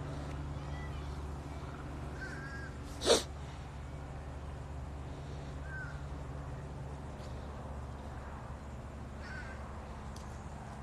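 A man sniffing hard once, a short sharp snort through the nose about three seconds in, over a steady low hum. Faint short bird calls come a few times.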